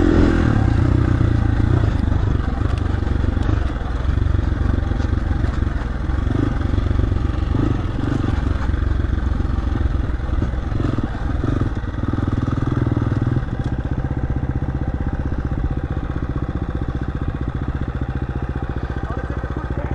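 Dirt bike engine running, its revs rising and falling, then dropping to a lower, steadier note about two-thirds of the way through.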